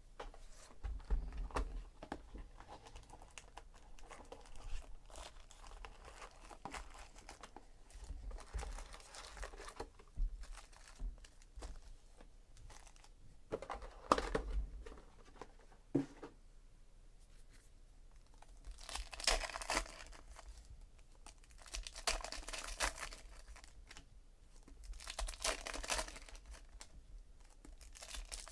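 Trading-card packs being torn open by hand, their shiny wrappers crinkling and tearing in three strong bursts near the end. Before that come softer handling sounds and a knock or two as cardboard card boxes are moved.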